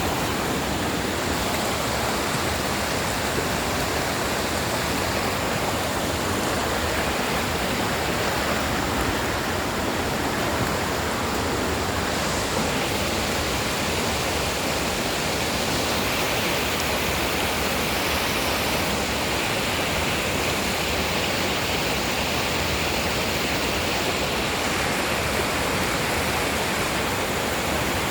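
Waterfall: a steady rush of falling water with no let-up.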